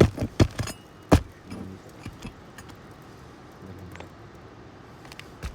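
A quick run of sharp knocks, about five in the first second, then fainter shuffling and scraping.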